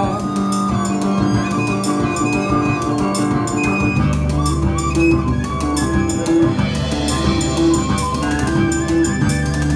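Live band playing an instrumental passage on guitar, bass guitar and drum kit, with no singing; the bass gets heavier about four seconds in.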